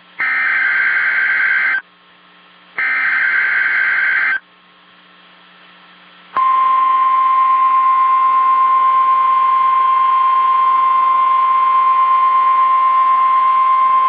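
NOAA Weather Radio Emergency Alert System tornado-watch alert: two buzzy bursts of the coded SAME header, each about a second and a half long with a pause of about a second between them. About six seconds in, the steady single-pitch 1050 Hz warning alarm tone begins and holds.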